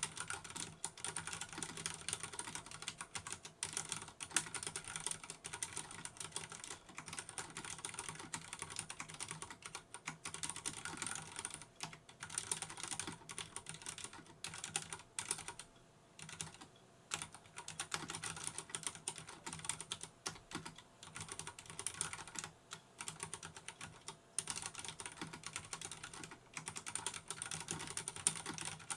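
Continuous fast typing on a Vortex Race 3 RGB mechanical keyboard with Cherry MX Brown (tactile) switches: a dense run of key clicks and clacks, with a few short pauses.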